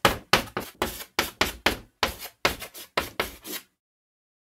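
Chalk-writing sound effect: quick scratchy strokes of chalk on a blackboard, about four a second, stopping abruptly near the end.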